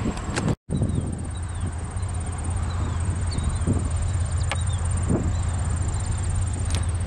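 Norfolk Southern diesel locomotive approaching at the head of a double-stack container train: a steady low engine drone, with a high, steady buzz of insects over it. The sound drops out for a moment about half a second in.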